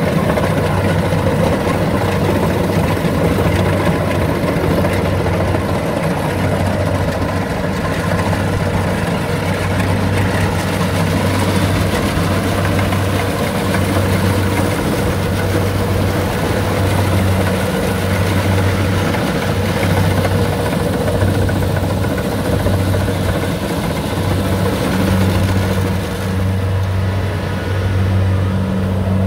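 Diesel engine of a rice combine harvester running steadily at a constant note, with a slight rise in its hum near the end.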